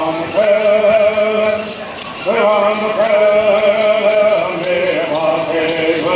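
A group of men singing a Southern California bird song in unison, holding long notes, to a steady beat of shaken gourd rattles, about four shakes a second.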